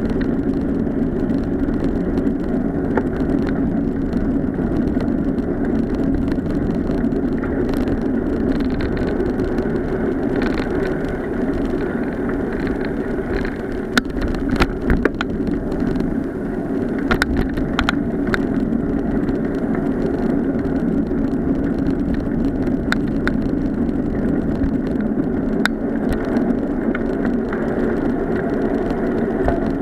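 Bicycle riding along a paved path: steady tyre and wind rumble, with a cluster of sharp knocks and rattles about halfway through as it crosses a road.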